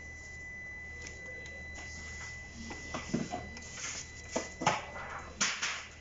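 Knocks, clicks and short rustles of wooden beehive boxes and the things on them being handled, coming in a cluster from about halfway through. A faint steady high whine runs underneath.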